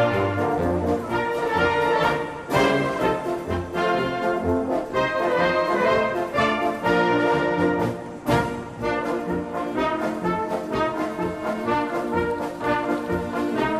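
Background music played by brass instruments, a run of held notes in a steady rhythm.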